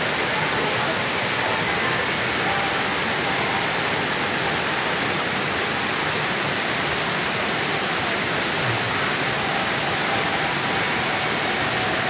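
Waterfall pouring into a pool: a steady, even rushing of falling water.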